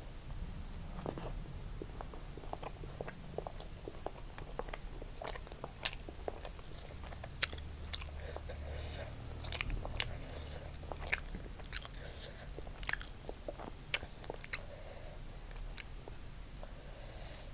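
Close-miked eating: chewing and crunching mouthfuls of fried rice, with irregular sharp mouth clicks and smacks, a few much louder snaps among them.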